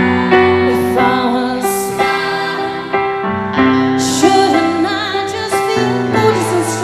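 Live band music led by piano chords, with a brief wordless vocal line over them about four seconds in.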